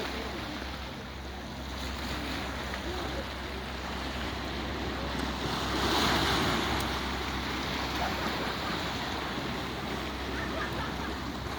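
Sea waves washing against the shore, with a steady low wind rumble on the microphone; one wave surges louder about six seconds in.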